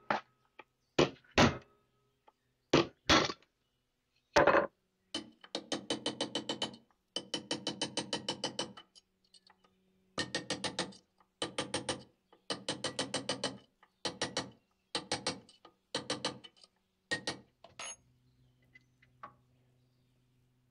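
Hammer striking a steel punch held against the rusted steel bayonet hilt in a vise. First a few single sharp strikes, then quick runs of light taps, several a second, broken by short pauses, until shortly before the end.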